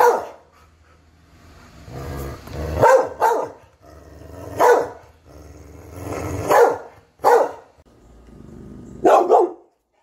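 A large dog barking deeply, about six barks a second or two apart, most of them led in by a low grumbling build-up.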